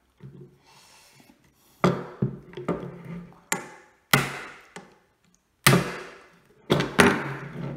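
Sharp taps on a bolt set through the action of a side-by-side sidelock shotgun, driving the left-hand lock plate out of its tight fit in the action. There are about eight taps, irregularly spaced, with the heaviest about four, five and a half and seven seconds in.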